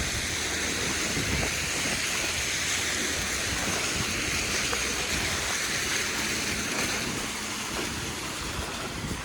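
Car driving on a snowy road: steady tyre and road noise with a low engine rumble underneath.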